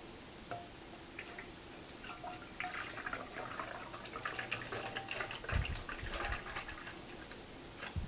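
Antifreeze concentrate poured from a bottle into a plastic measuring jug: irregular splashing of liquid, starting about two seconds in and stopping near the end, with a couple of dull knocks about halfway through.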